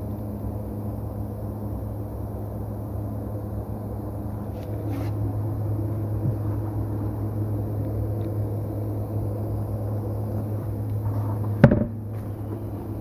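Steady low electrical machine hum that gets a little louder about four and a half seconds in, with one sharp knock near the end.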